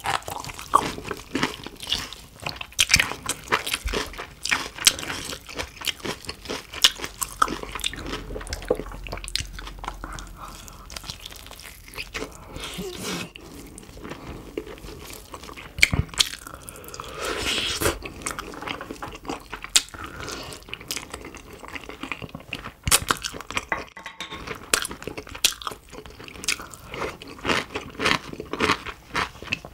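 Close-miked eating of roast pork on the bone: crispy skin crunching between the teeth and wet, sticky chewing of the meat, in a dense run of sharp crackles with a softer chewing stretch about halfway through.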